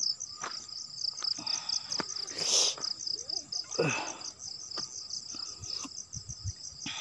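Night insects, crickets, chirping in a steady, rapid high-pitched pulsing trill, with occasional short rustles and clicks nearby, the loudest about two and a half and four seconds in.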